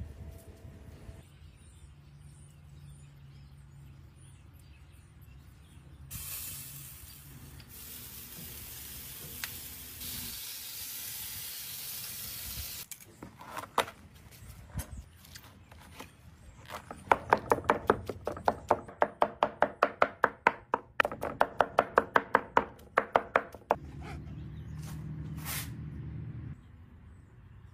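Large knife rapidly chopping cooked chicken on a board, about four to five strikes a second for several seconds. Before it, a steady hiss runs for several seconds.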